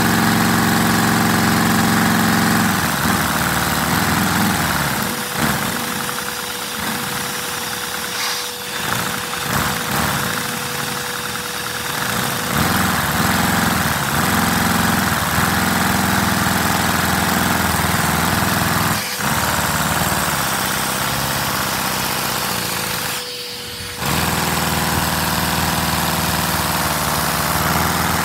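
LEGO inline-four vacuum engine running on suction from a vacuum cleaner hose, the vacuum's motor noise mixed with the engine's own running. Its pitch shifts several times, and the level drops briefly about five seconds before the end.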